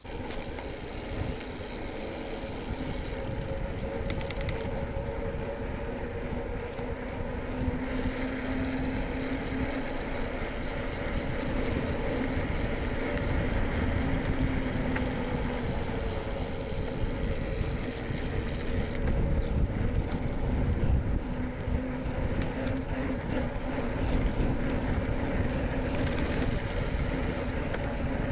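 Bicycle being ridden over a rough road: a steady rumble of the tyres with dense rattling from the bike.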